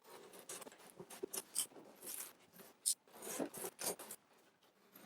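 Cardboard box and packaging of a dust extractor being opened and handled: irregular scraping and rustling with a few sharp clicks.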